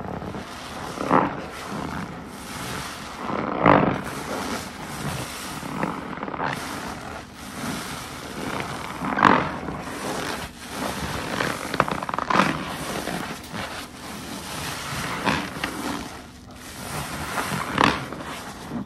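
Detergent-soaked car wash sponge being squeezed and released by hand, with wet, foamy squelching and crackling. Louder squeezes come every few seconds.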